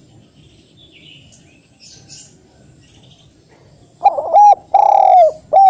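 Spotted dove cooing loudly about four seconds in: a run of four coos, the third the longest. Before that only faint high chirps from other small birds.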